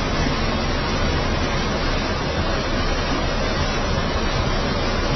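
Steady, loud rushing noise with no distinct sound in it, even from low to high and unchanging throughout.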